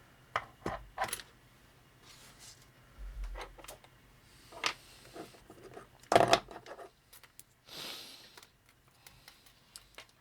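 Small 3D-printed plastic robot parts being handled and set down on a workbench: scattered light clicks and knocks, a louder knock about six seconds in, and a short rustling scrape just before eight seconds.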